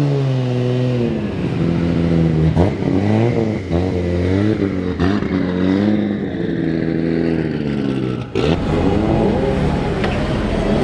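Modified MkIV Toyota Supra's inline-six revving up and down in repeated blips as it pulls away. About eight seconds in, a different car's engine takes over, also rising and falling.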